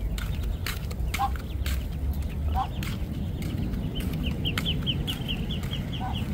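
Muscovy duck hen with her ducklings: a few short, low clucking calls, and from about two-thirds of the way in a fast run of high peeps, about six a second, from the ducklings. Under them a steady low rumble and scattered sharp clicks.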